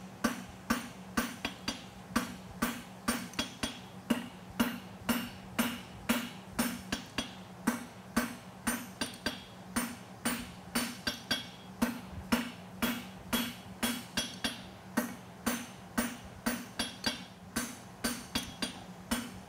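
Hand hammer striking a glowing steel tong jaw on an anvil in a steady rhythm of about two to three blows a second, drawing the tip out square. Each blow rings briefly, over a steady low hum.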